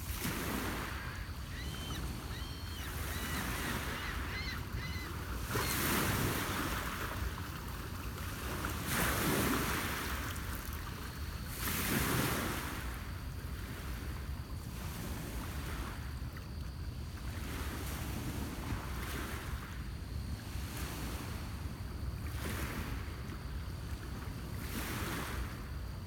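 Small lake waves washing against a rocky shore, one wash every few seconds, with several stronger washes in the first half, over a steady low rumble of wind.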